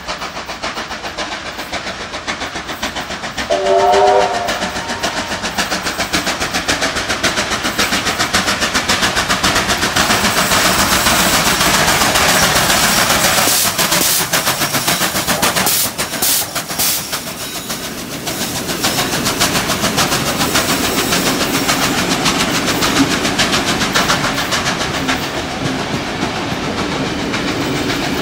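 Streamlined C38-class Pacific steam locomotive 3801 passing at speed with a train of heritage carriages. A short chord-like whistle blast comes about four seconds in, then the rapid clatter of the locomotive going by, followed by the steady rolling and clickety-clack of carriage wheels on the rails.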